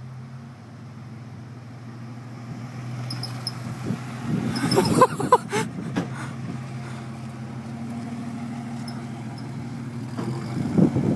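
GMC Syclone's turbocharged 4.3-litre V6 running as the truck drives past, with a louder stretch of revving about halfway through, then pulling away under light throttle and getting louder again near the end.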